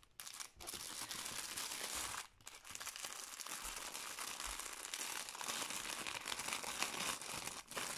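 Plastic packaging crinkling and rustling as it is handled and unwrapped, with brief pauses about two seconds in and near the end.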